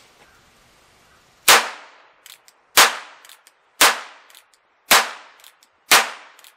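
Heritage Rough Rider single-action .22 revolver firing .22 nail-gun blanks (powder-actuated tool loads), five sharp cracks about a second apart, each with a short ringing tail. Small clicks of the hammer being cocked come between the shots.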